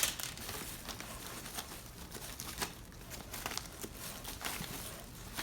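Faint rustling and scattered light clicks of hands sorting through small items inside a purse.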